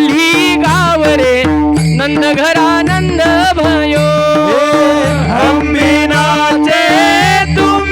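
Kirtan devotional singing with accompaniment. A sung melody wavers and glides over a steady held drone, backed by a repeating drum beat and regular cymbal strokes.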